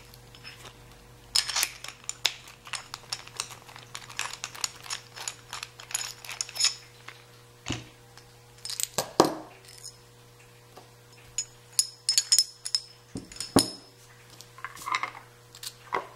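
Yale Y210 steel padlock being taken apart by hand: irregular light metallic clicks and clinks of its small parts and tools, in scattered clusters, over a steady low hum.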